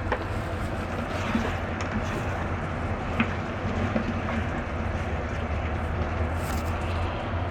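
Steady rushing kitchen noise of chicken and chestnuts cooking in a pan on the stove, over a constant low hum, with a few light clicks of a utensil.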